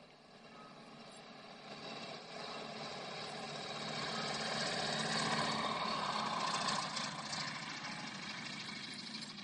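Shark Aero light sport aircraft's engine and propeller growing louder as it comes in low toward the listener, loudest a little past halfway through, then easing off somewhat as it goes by.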